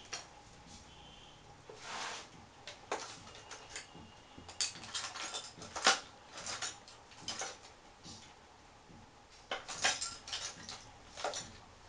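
Irregular clicks, clinks and rattles of metal and plastic parts being handled inside an opened Canon iR3300 photocopier, the sharpest clicks about halfway through and again near the end.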